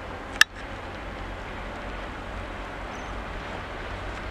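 Steady, distant rumble of a VL11 electric locomotive pair approaching with a freight train, mixed with wind on the microphone. A single sharp click about half a second in is the loudest sound.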